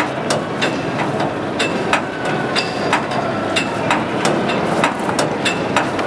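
Hand-cranked opening mechanism of the A4 locomotive's streamlined nose doors (the 'cod's mouth') clicking steadily as it is wound, about three sharp metallic clicks a second, several with a short ring, over the hum of a large echoing hall.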